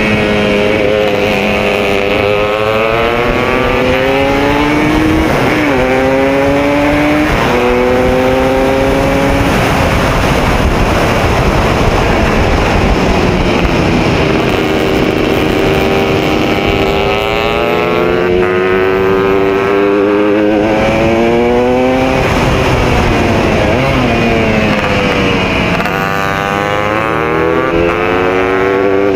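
Onboard sound of a classic racing motorcycle's engine at full race pace, its pitch climbing through the gears and dropping back several times as it shifts and brakes for corners, over steady wind rush on the camera.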